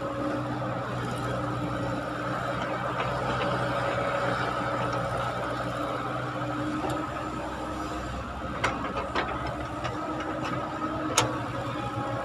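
Caterpillar hydraulic excavator's diesel engine running steadily under working load as the arm swings from the dump truck back to the trench. A few sharp knocks come in the second half, the loudest near the end, as the bucket goes back into the trench.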